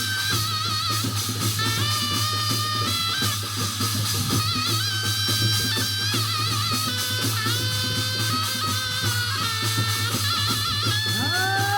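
Korean shamanic ritual music: a reed wind instrument plays a wavering, held melody over dense drumming.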